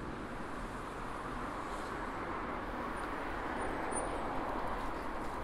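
Steady city street ambience: a continuous hum of road traffic with no single event standing out.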